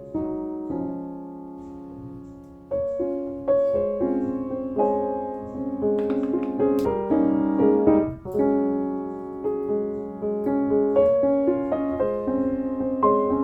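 Solo piano music: slow held chords at first, then a gentle run of notes from about three seconds in.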